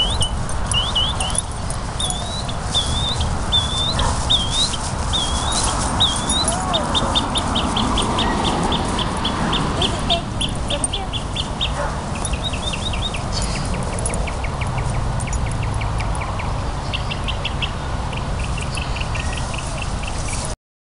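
A songbird singing: a run of short, slurred whistled notes repeated about once a second, then fast trills of quickly repeated notes, over a steady low rumble. The sound cuts off suddenly near the end.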